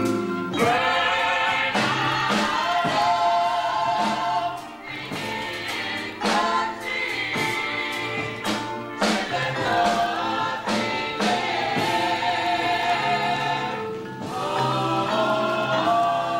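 Gospel choir singing together, many voices holding long sung notes, with sharp beats cutting through the music.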